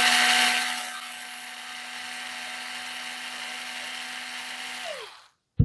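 Small Parkside cordless screwdriver running free with a steady electric-motor whine. It drops in loudness about a second in, runs on evenly, then spins down with falling pitch near the end.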